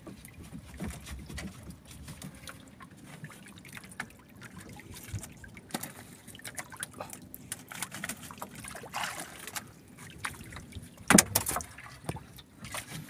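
Water sloshing and lapping around a small wooden outrigger boat, with scattered knocks on board and two louder thuds near the end.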